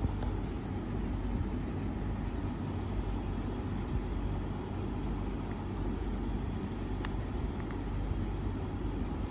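Steady low rumbling background noise, with a couple of faint clicks about seven seconds in.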